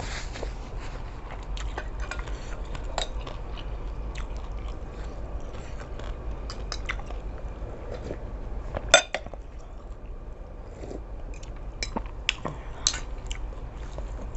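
A person chewing and biting mouthfuls of seafood suki, with light clinks of a spoon against the bowl. There is one sharp, louder clink about nine seconds in, and a few more near the end.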